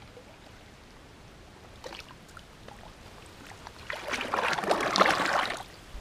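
Muddy water sloshing and splashing as a plastic bucket is heaved and tipped in shallow pond mud, one loud burst of under two seconds about four seconds in, with a few faint small splashes before it.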